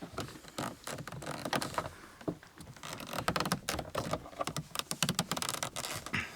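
Irregular clicks and light knocks of hard plastic and small tools being handled while working on a car door's interior trim.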